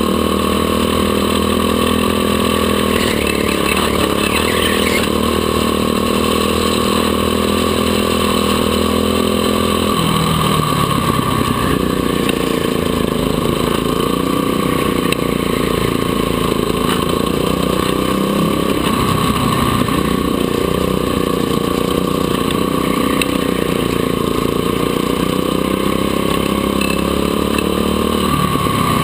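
Go-kart engine heard from on board, running hard with its revs repeatedly falling and rising as the kart laps. The pitch dips a few seconds in and wavers up and down through the rest.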